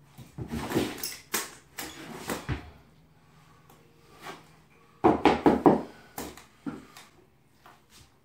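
Hand trowel scraping and smoothing floor leveling compound over a subfloor in short strokes, with a few knocks. A louder run of quick scrapes comes about five seconds in.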